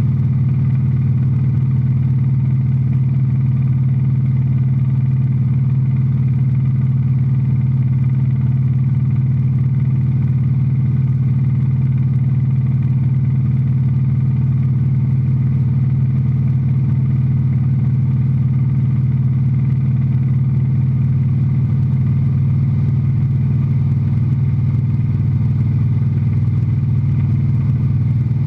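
Single-engine light aircraft's engine and propeller droning steadily at an even pitch in level cruise flight, heard from inside the cockpit.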